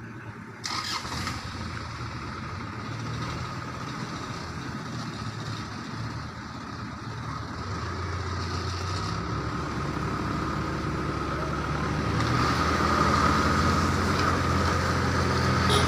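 Vehicle engines running under load while an SUV tows a stuck pickup truck out of a ditch on a rope. The engine sound grows steadily louder, and a whine above it strengthens in the last few seconds.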